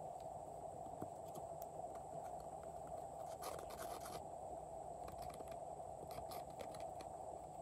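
Metal spatula scraping pressed powder eyeshadow out of a palette pan: faint short scratches, with a longer run of scraping about three and a half seconds in.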